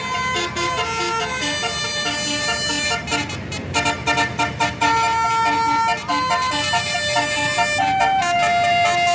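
Tour bus telolet horn, a set of multi-tone horns, playing a stepped melody: quick short notes a little past the middle, then longer held notes. A steady low rumble runs underneath.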